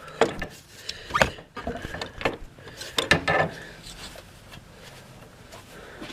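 Crescent wrench working on a radiator's cooling fan switch: a few sharp metallic clicks and scrapes in the first three seconds or so, then quieter.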